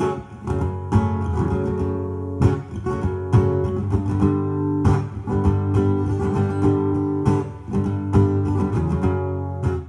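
Background music: acoustic guitar strumming chords, with a sharp strum about every second.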